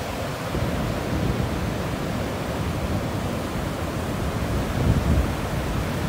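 Sea surf on a sandy beach: waves breaking and washing up the shore in a steady rushing wash, swelling a little about five seconds in.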